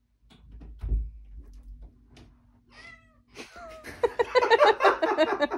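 Domestic cat meowing, short calls that fall in pitch, let in at a bedroom door. A low thump as the door is opened about a second in; near the end a louder, rapid run of overlapping calls, the loudest part.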